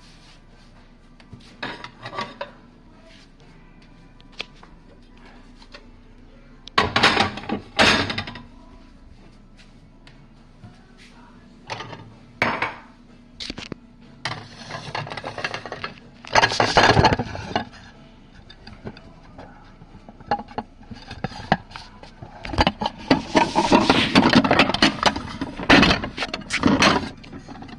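Plates and bowls clinking and clattering against each other and the dishwasher rack as they are lifted out and stacked, in several separate bursts with the longest near the end.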